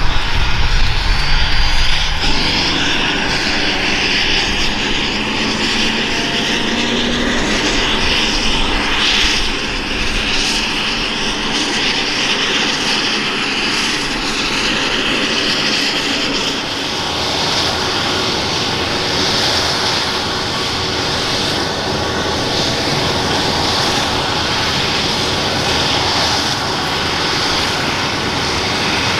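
Airbus EC135 P2+ helicopter running steadily, its twin Pratt & Whitney PW206B turboshaft engines whining over the noise of the turning rotor.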